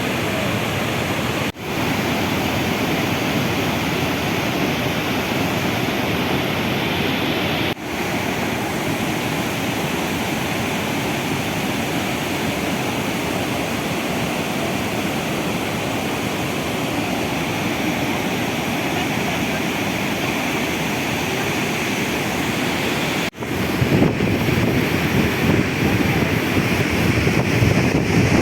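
Roar of the Iguaçu Falls: a loud, steady rush of heavy falling water, broken by three very short dropouts. Near the end it turns louder and gustier as wind buffets the microphone.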